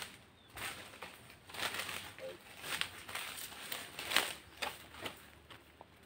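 Footsteps crunching and crackling through dry leaf litter and brush, an uneven run of steps with several louder crunches.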